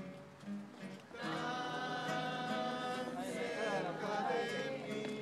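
Acoustic guitars strumming while a group of voices sings along, the singing coming in louder about a second in.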